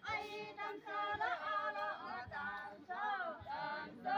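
A group of women singing a folk dance song together, unaccompanied, in held phrases broken by short pauses.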